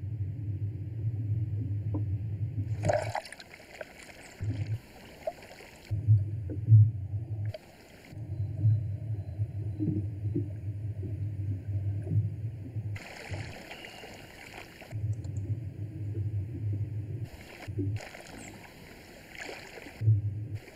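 Swimming-pool water: a muffled low underwater rumble that several times gives way to brighter splashing and lapping, about 3 seconds in, again near 13 seconds and near 18 seconds.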